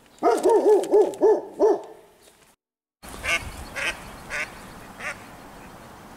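A goose honking in a rapid run of about seven calls for roughly two seconds. After a brief cut, four short, harsh sounds ring out over a steady outdoor hiss.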